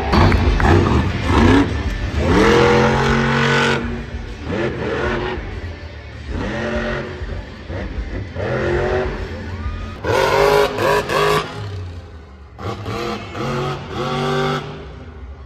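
Monster truck engines revving hard in repeated bursts, their pitch climbing and falling with each surge of throttle. The loudest surges come near the start and again about two-thirds of the way through.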